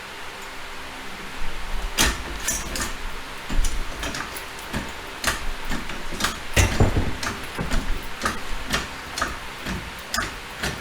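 Hydraulic car jack being pumped: a string of sharp clacks, one with each stroke of the handle, roughly every half second to second, as the jack lifts the car.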